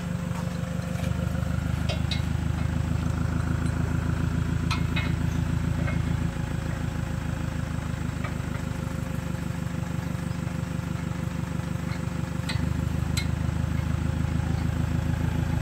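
Toyota Hilux 3.0 four-cylinder turbodiesel idling steadily, getting louder about a second in, quieter midway and louder again near the end. A few light clinks come from the tow strap being fitted at the rear of the truck.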